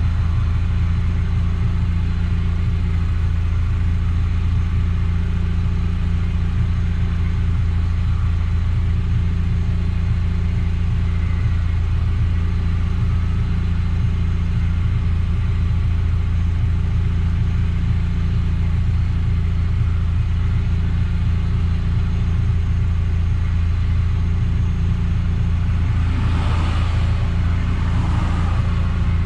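Eunos Roadster on the move: a steady low drone of engine and road noise. A brief swell of rushing noise comes near the end.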